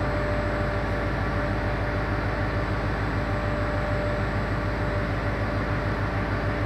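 Train running away along the station line: a steady rumbling noise with a steady tone running through it.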